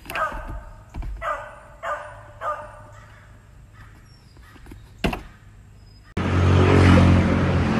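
A dog barks four times in quick succession, with about half a second to a second between barks, and a sharp click follows about five seconds in. A little after six seconds a loud, steady low rumble with a rush of noise cuts in suddenly.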